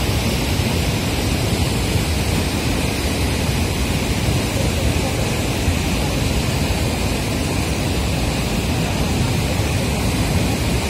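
Steady rushing of a flooded river in spate after heavy rain, an unbroken wash of water noise with no breaks.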